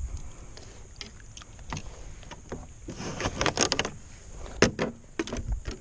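Clicks, knocks and rattles of gear being handled on a plastic sit-on-top fishing kayak, with a busier scuffle about three seconds in and one sharp knock just after it.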